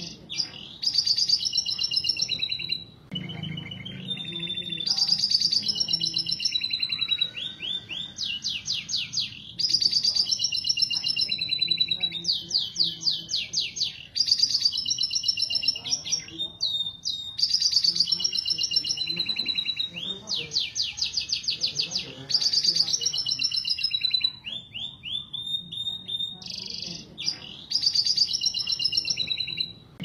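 Canaries singing in breeding condition: long, loud phrases of chirps and sweeping notes, broken up by fast rolling trills, with a few short pauses between bouts.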